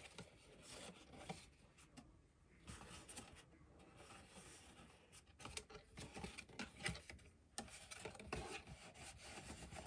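Faint rustling and rubbing of cardstock as hands fold the glued tabs of an explosion piece and press them into the paper box, with a few light taps.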